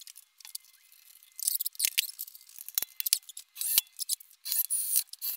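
Caster wheels and wooden spacer blocks being handled and set down on a steel-framed cart top by gloved hands: scattered clicks, light clinks and short scrapes, with a few louder knocks.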